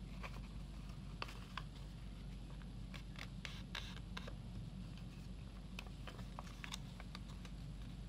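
Origami paper rustling and crackling as it is folded and creased by hand, in short scattered crackles over a steady low hum.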